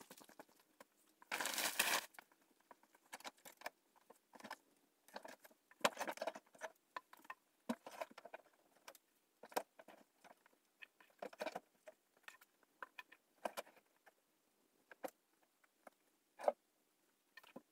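Irregular footsteps with scattered small knocks and rustles. There is a louder rustle about a second and a half in, and a sharper knock near the end.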